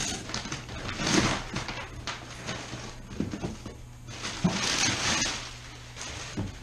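Rustling and scraping of goods being handled and lifted out of an open cardboard shipping box, with two louder bursts, about a second in and again around five seconds.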